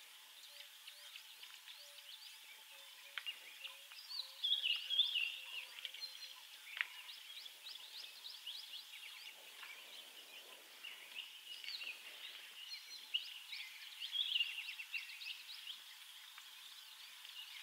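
Birds chirping and calling, many short repeated chirps, with louder bursts of falling calls about four seconds in and again near the end. A couple of sharp clicks sound in between.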